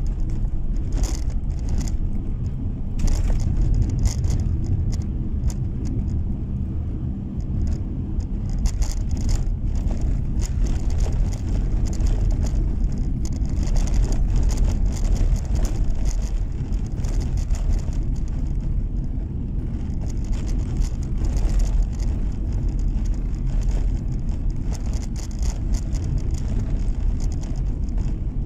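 Car driving on a snow-packed road, heard from inside the cabin: a steady low rumble of engine and tyres, with a light irregular crackle over it.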